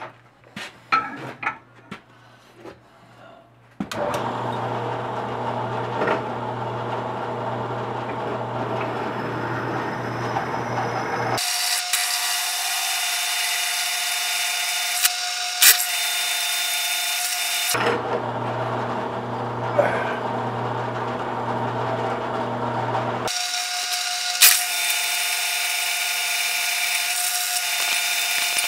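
A few light clicks and knocks, then about four seconds in a benchtop drill press starts and runs steadily while drilling into a steel sprocket. The sound changes abruptly several times between a lower motor hum and a brighter, higher cutting whine.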